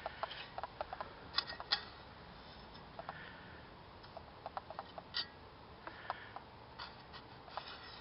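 Irregular small clicks and crackles of soil, leaves and debris being handled and picked through in a freshly dug hole while searching for a buried metal target.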